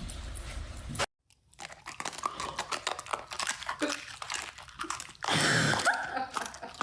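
Crunching and chewing: a run of crisp crackles and clicks, starting after a brief break about a second in, with a louder noisy burst near the end.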